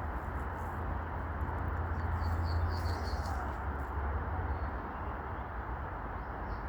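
Steady outdoor background noise with a low rumble; about two seconds in, a small bird gives a quick series of faint, high chirps lasting about a second.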